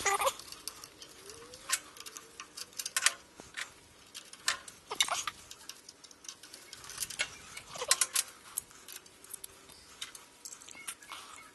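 Irregular light metallic clicks and taps, some in quick pairs, from gloved hands handling a lathe's Z-axis ball screw and bearing housing and picking up wrenches.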